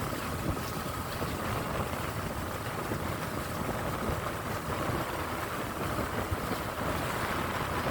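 Boat under way: an engine drones steadily under wind and water noise, with wind buffeting the microphone.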